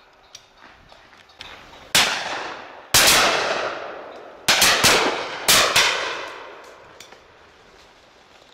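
Shotguns firing at driven game birds: about eight sharp shots from guns along the line. Some are close and loud and some farther off, several coming in quick succession in the middle, each trailing off in a long echo.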